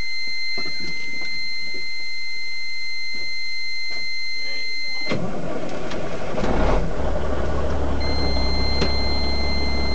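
Semi truck's low-air warning buzzer sounding a steady high tone, the air pressure being below the warning point. About five seconds in the tone cuts out as the diesel engine is cranked; the engine catches with a brief rise in revs and settles into a steady idle, and the buzzer comes back on near the end.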